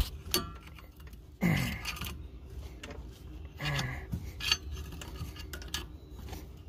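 Metal clinks and scrapes of a flathead screwdriver prying a BMW E30's front brake caliper off the rotor. There is a sharp click at the start and a few more clicks about four and a half seconds in.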